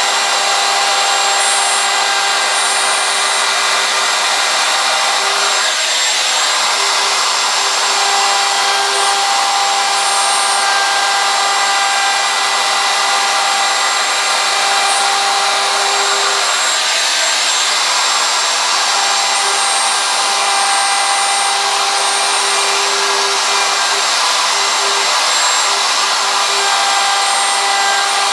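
DeWalt DW618 router running with a 90-degree V-groove bit, cutting a groove in a wooden sign: a steady, high motor whine over the hiss of the cut.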